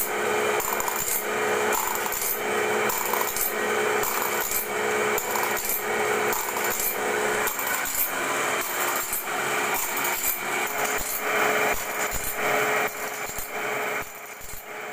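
Automatic band saw blade sharpener grinding the teeth of a sawmill bandsaw blade. The abrasive wheel rasps on the steel with a steady motor hum, and a regular stroke repeats about one and a half times a second as the machine indexes and grinds tooth after tooth. The sound grows fainter near the end.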